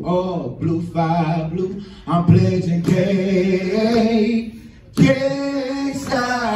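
A group of fraternity men chanting and singing a cappella in unison, in short phrases, with a brief pause about four and a half seconds in before the voices come back in together.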